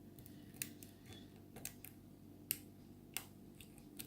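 Faint, sharp metallic clicks of a lock pick and tension wrench working the pins inside an Abus 72/40 brass padlock, about six scattered clicks over a few seconds.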